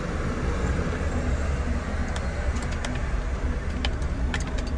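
A car's engine running with a steady low rumble, and a few scattered light clicks in the second half.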